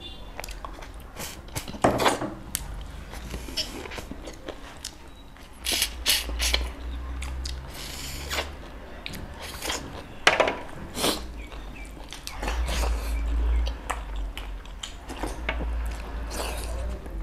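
Close-miked chewing and wet mouth clicks and smacks of people eating meat and rice by hand, with scattered sharp clicks and a low rumble swelling now and then underneath.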